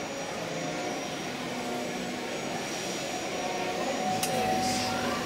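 Steady background noise of a crowded exhibition hall: many distant voices talking at once, with one sharp click about four seconds in.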